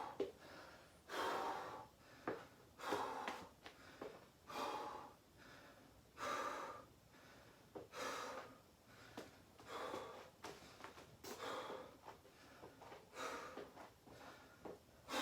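A man breathing hard between sets of exercise, catching his breath. There is a loud rush of air about every second and a half to two seconds.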